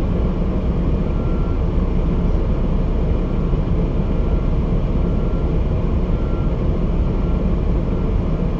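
Large mobile crane backing up: a steady low engine rumble with a faint, high back-up alarm beep repeating every second or two.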